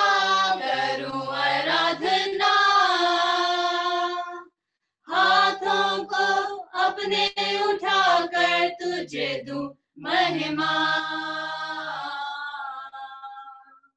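Women's and a man's voices singing a Hindi-Urdu Christian worship song together without accompaniment, heard over a Zoom call. The phrases break off briefly twice, and the last note is held and fades away near the end.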